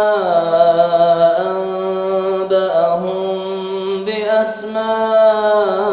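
A man's solo melodic Quran recitation (tajwid) through a microphone: one voice holding long drawn-out notes that step down and back up in pitch.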